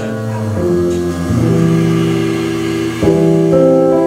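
Instrumental jazz from a small band with piano: slow, held chords that change every second or so, with a louder chord about three seconds in.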